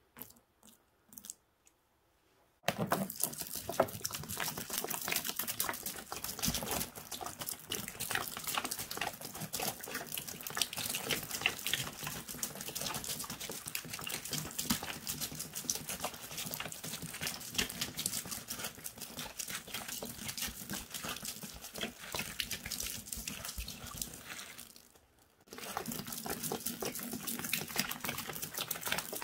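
Liquid poured from a jug splashing onto grout sponges in a plastic tub, the suds fizzing and crackling as they build. A few small clicks come before the pour starts about two and a half seconds in, and the pour breaks off briefly near the end before starting again.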